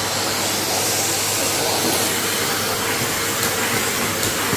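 Numatic James tub vacuum cleaner running steadily: a motor hum under the rush of air being sucked through the hose.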